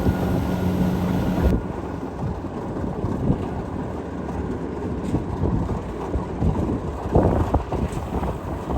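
Kubota DC688Q combine harvester running under load while cutting rice, a steady engine hum with rumbling and rattling. About a second and a half in, the sound changes abruptly and the hiss drops away.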